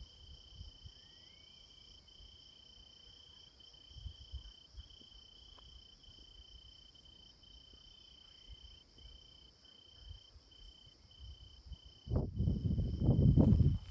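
Crickets singing in a steady high trill broken by short gaps, with fainter insect buzzing higher still. Near the end a loud low rumble on the microphone takes over.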